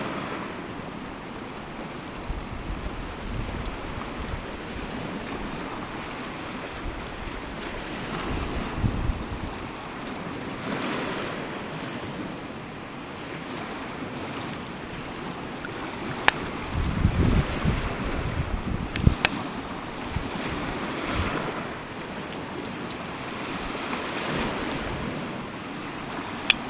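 Sea waves breaking and washing over a pebble shore, swelling and easing, with wind gusting on the microphone. A couple of short sharp clicks stand out partway through.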